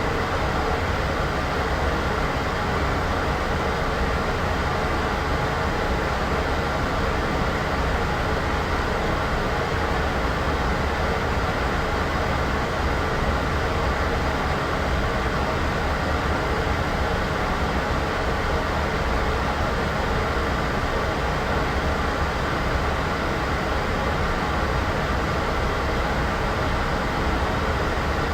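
Steady white noise sound effect: an even, unchanging hiss with a low rumble underneath.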